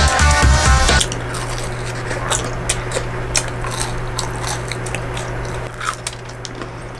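Close-up crunching and chewing of crisp pizza crust: a string of sharp crackly bites over a steady low hum. Electronic music cuts off about a second in.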